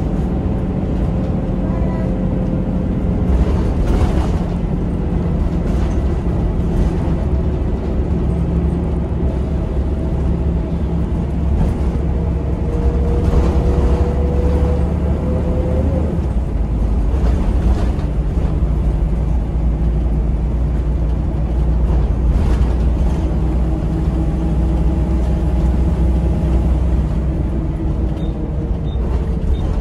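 Volvo B7RLE bus's diesel engine and ZF automatic gearbox heard from inside the cabin as the bus pulls along. The pitch climbs, the gearbox changes up about halfway through, then the pitch climbs again. Light interior rattles are heard now and then.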